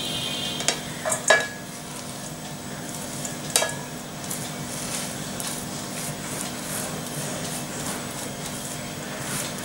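Damp grated potato being tipped and brushed off tissue paper into a stainless steel bowl: soft paper rustling and crackling, with a few sharper clicks in the first four seconds as shreds and hand hit the bowl.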